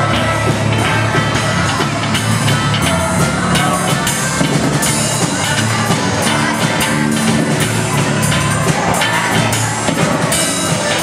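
Live band playing upbeat rock and roll, a drum kit keeping a steady beat under strummed acoustic guitar and electric bass.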